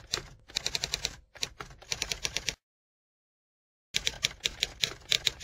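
Typewriter keys clacking in quick runs of strikes, a typing sound effect. The typing stops for over a second midway, then resumes.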